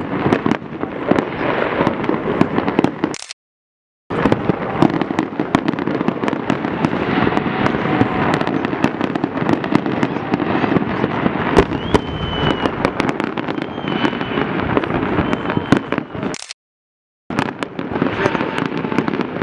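Fireworks display: a dense, continuous run of bangs and crackling, with a few short high whistles about two-thirds through. The audio drops out completely twice for under a second.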